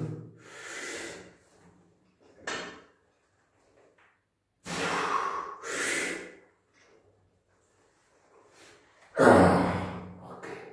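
Forceful, noisy breaths and strained exhalations of a man pressing a heavy barbell on a bench, coming in separate bursts with pauses between, the loudest near the end. A single short click comes a little over two seconds in.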